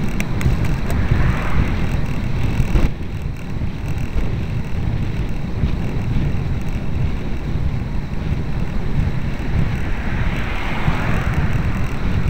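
Wind buffeting the microphone of a camera moving along a road, a steady low rumble that eases slightly about three seconds in. A car goes by about a second in, and another passes near the end.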